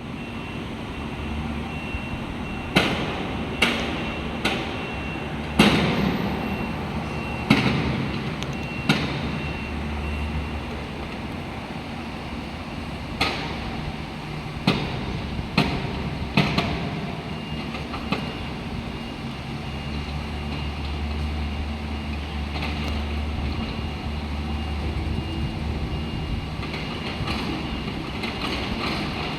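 Mini excavator's engine running steadily, working harder for stretches, while the bucket digs and dumps soil and debris, giving about ten sharp metallic clanks and bangs, most of them in the first half.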